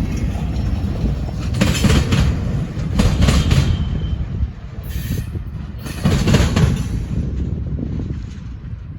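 Freight cars rolling past on the rails with a steady low rumble and irregular clacks as wheels cross rail joints, fading slightly near the end.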